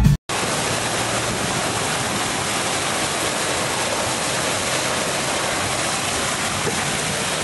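Steady, even rush of water: floodwater spraying around an inflatable tube skimming through a flooded street. It starts about a quarter second in, right after music cuts off.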